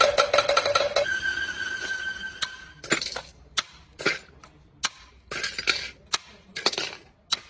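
Metal parts and tools striking and clinking, a sharp ringing clank about every half second. In the first couple of seconds a steady machine whine with rapid clicking stops.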